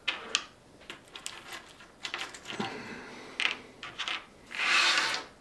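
Small resin scale-model wheels clicking and tapping as they are picked up and set down on a cutting mat: a scatter of light knocks, with a short hiss near the end.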